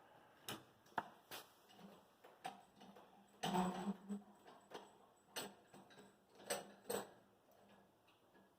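Irregular metallic clicks and clinks of hand tools on small corroded bolts, with a louder scraping clatter about three and a half seconds in.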